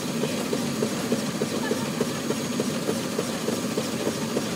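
Six-inch scale Burrell scenic showman's traction engine running under steam, its moving parts giving a steady, even clatter of about four knocks a second over a low steady tone.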